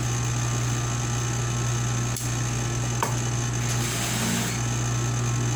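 A machine running steadily: a low hum with a fast, even pulsing underneath, and a couple of faint ticks partway through.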